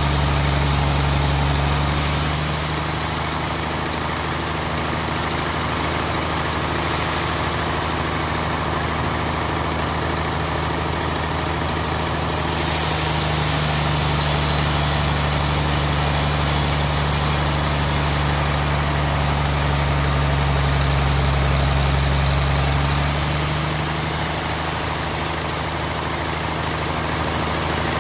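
Sawmill band saw running, a steady low drone with a hiss above it as a large block of wood is fed through; the hiss grows brighter about halfway through.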